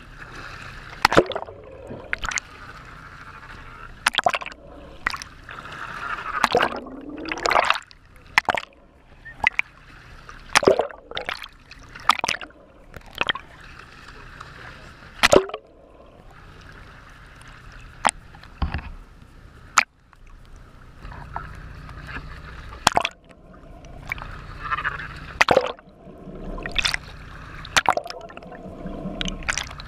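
Sea water splashing and sloshing around a camera held at the waterline, going under and coming back up, with many sharp splashes as the water slaps against it.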